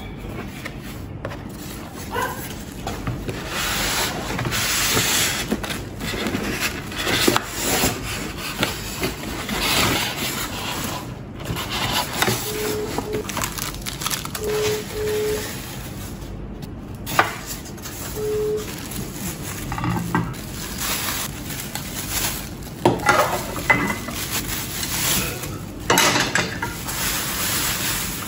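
Unboxing handling sounds: cardboard flaps opened, styrofoam packing blocks rubbed and lifted, and plastic wrapping crinkled as an appliance is unpacked. A few short squeaks come in the middle.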